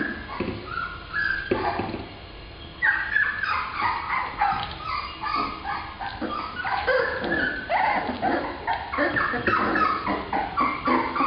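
Black Labrador puppies whining and yipping in quick, short high-pitched calls, with a brief lull about two and a half seconds in and then calls almost without a break.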